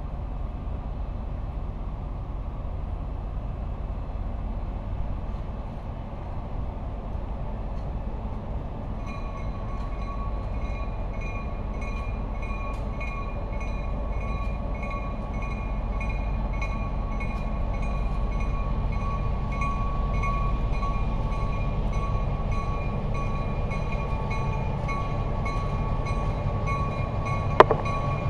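EMD SW1500 switcher locomotive approaching, its 12-cylinder diesel rumbling low and steadily growing louder as it nears. About nine seconds in, a bell starts ringing at roughly two strokes a second and keeps on. A single sharp knock comes near the end as the locomotive draws alongside.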